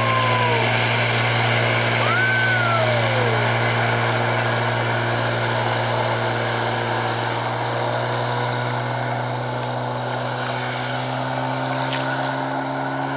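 Outboard motorboat engine running steadily at speed, a constant low hum over the rush of water. A few short rising-and-falling whistle-like calls sound in the first three seconds.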